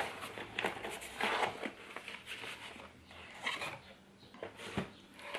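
A cardboard product box being opened and its contents lifted out: irregular rustling of cardboard and packing, with a few light knocks.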